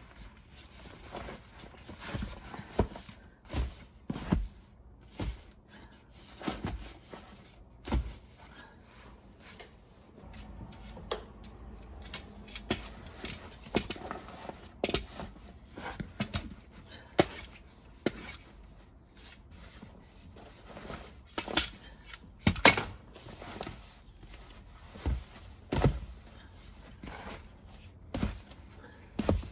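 Handling and unfolding a collapsible fabric dog bath: its stiff panels rustle and crease as they are pushed out, with irregular knocks and thunks, the loudest about three-quarters of the way through.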